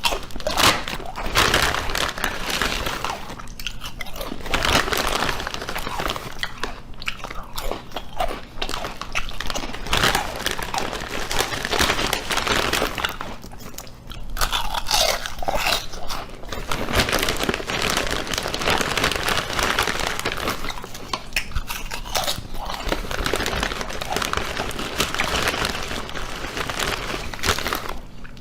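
Dense, continuous crunching and chewing sounds, with brief dips about 4 and 14 seconds in.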